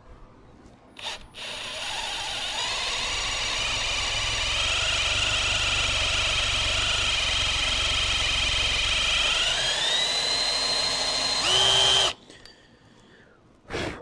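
A power drill countersinking a hole in steel with a piloted microstop countersink cutter. It runs for about ten seconds with a steady whine and a low rumble from the cut. Near the end the rumble fades and the whine rises in pitch as the stop collar bottoms out and the load comes off the cutter. The drill then stops suddenly, and a click follows shortly after.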